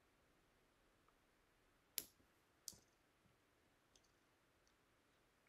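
Near silence broken by a few faint clicks and taps as small embellishment gems are handled and pressed onto paper tags: one sharp click about two seconds in, another shortly after, then two softer ticks.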